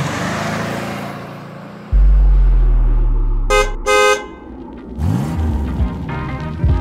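Intro sound effects: a swish, then a deep vehicle-like rumble with two short car-horn toots, followed by sliding tones as music comes back in.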